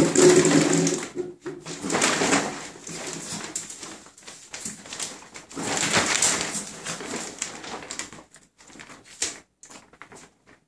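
Pembroke Welsh Corgi puppy whining for about the first second, then irregular rustling and scraping noises in a bathtub that fade toward the end.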